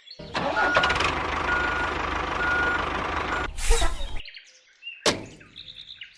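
Truck engine running with a reversing alarm beeping three times, about a second apart, then a short air-brake hiss. The sound cuts off suddenly about four seconds in.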